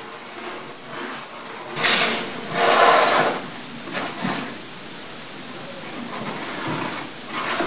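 A cardboard box and a plastic gallon milk jug being handled and shifted on a countertop: two short, loud scraping noises about two and three seconds in, a smaller one a second later, then quiet handling.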